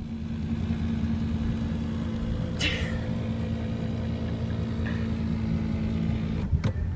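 A 2005 Dodge Ram 2500's 5.9-litre Cummins inline-six turbo-diesel idling steadily, heard from inside the cab. A brief sharp noise cuts in about two and a half seconds in.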